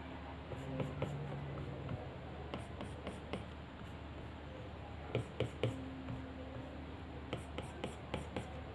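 Stylus tip tapping and stroking on the glass screen of an iPad Pro, heard as irregular clusters of light clicks.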